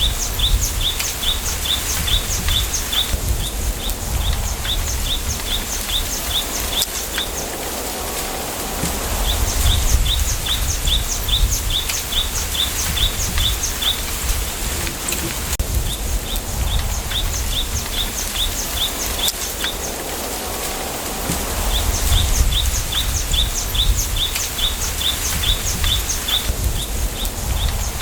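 Wind in a bamboo grove, a steady rustling haze with gusts rumbling on the microphone. A bird gives rapid runs of high chirps, about five a second, lasting a few seconds each and coming back several times.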